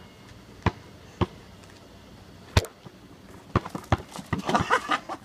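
Basketball bouncing on an asphalt driveway: a few single bounces at uneven gaps, then quicker knocks in the last couple of seconds.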